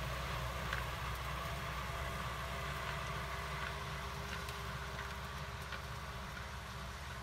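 Kubota M6040SU tractor's four-cylinder diesel engine running steadily under load while pulling a plow through dry soil. It fades slightly as the tractor moves away.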